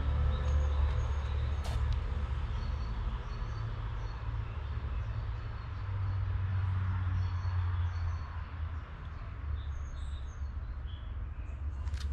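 Outdoor ambience: a continuous low rumble with small birds chirping now and then, more often near the end. A single click about two seconds in.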